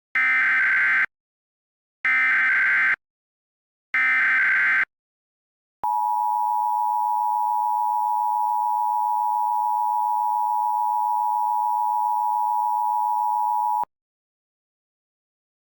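Emergency Alert System SAME header: three one-second bursts of warbling digital data, then the EAS two-tone attention signal held steady for about eight seconds before cutting off. Together they announce an emergency alert message to follow.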